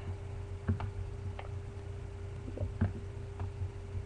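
About five light, scattered clicks over a steady electrical hum.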